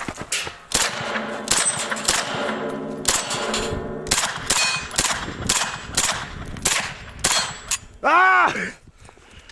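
Rapid gunfire in a timed drill: about fifteen shots roughly half a second apart, with steel targets ringing when hit. Just before the end comes a loud pitched sound that rises and then falls.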